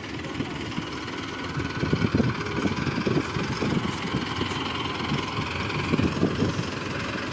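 Heavy-machinery diesel engine running with a rapid low pulsing that gets louder about two seconds in.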